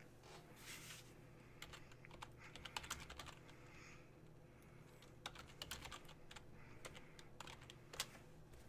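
Computer keyboard typing: quick runs of keystrokes in two main bursts, with scattered single taps and pauses between.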